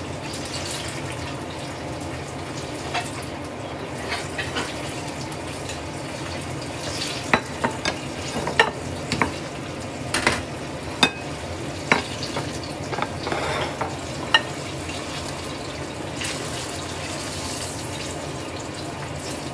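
Banana turon frying in hot oil in a pan with a steady sizzle. A run of sharp clicks and knocks from a utensil against the pan comes about 7 to 14 seconds in.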